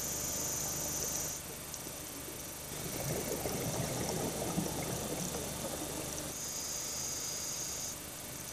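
Scuba diver breathing through a regulator underwater: a hissing inhale, then about three seconds of bubbling, gurgling exhale, then another hissing inhale near the end.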